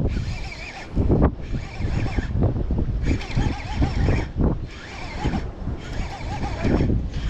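Strong wind buffeting the microphone: a deep rumble that rises and falls in gusts.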